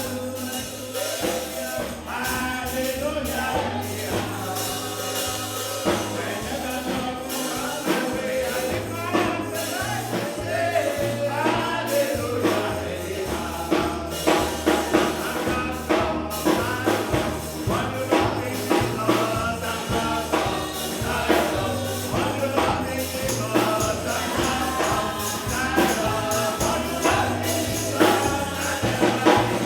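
Gospel song sung with tambourine and band accompaniment: voices carry the melody over a stepping bass line and a steady tambourine beat.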